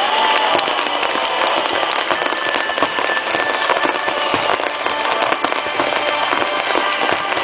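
Star mine fireworks barrage: a rapid run of shells launching and bursting, heard as a dense, unbroken stream of bangs and crackling pops.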